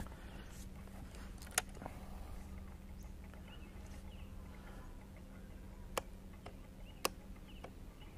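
Three faint, sharp single clicks a few seconds apart over a low, steady hum.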